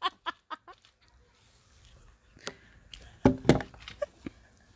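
Laughter tailing off in a quick run of short, breathy bursts, then a pause and a few sharp knocks and brief louder bumps about three seconds in.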